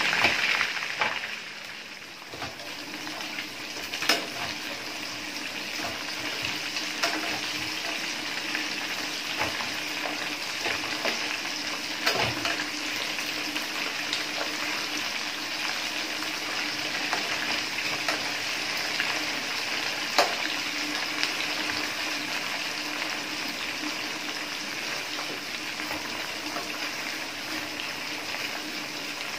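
Chicken pieces deep-frying in hot oil in a wok: a steady sizzle, loudest at the start as a fresh piece goes in, dropping about two seconds in and then building again. A few sharp clicks of the metal fork against the pan.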